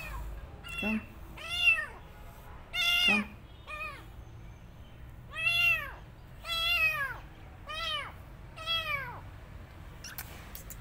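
A young kitten meowing over and over: about nine high calls, each rising and then falling in pitch, with short pauses between them.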